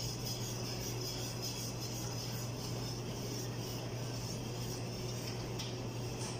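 Steady low hum with a broad rushing hiss from a commercial kitchen's extraction hood and lit gas range running, without distinct clatter from the stirring.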